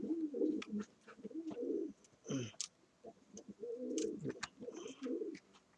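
A dove cooing in low, wavering phrases, several bouts in a row, with scattered light clicks alongside.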